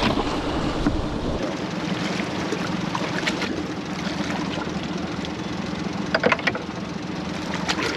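Small outboard motor running steadily with an even hum. A few sharp knocks come about six seconds in.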